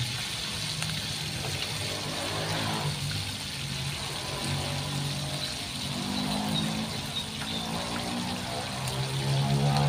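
Fish frying in hot oil in a wok over a wood fire, a steady sizzle. An engine drones in the background, growing louder near the end.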